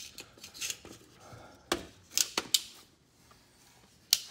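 Handling noise: a few scattered sharp clicks and knocks, one at the start, one in the middle followed closely by three more, and another near the end, with no steady sound between them.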